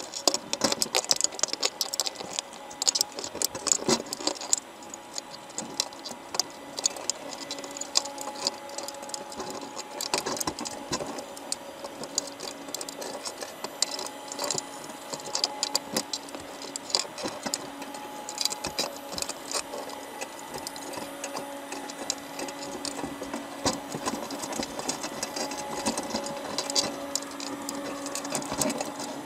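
Dense, irregular clicking and scratching heard underwater: crabs' shells and legs knocking and scraping against the wire mesh of a crab trap as they crowd onto the bait. Under it runs a faint steady hum.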